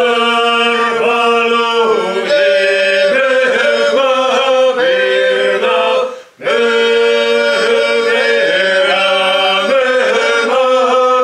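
Three men singing a Seto folk song (leelo) unaccompanied, in several voice parts at once, with a short break for breath about six seconds in.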